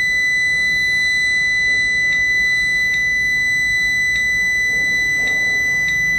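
Marcus TD-W2 weighing indicator's buzzer sounding one unbroken high-pitched tone: the check-weighing limit alarm, which sounds while the weight is outside the set limits. Short keypad clicks come about once a second, unevenly, as its buttons are pressed.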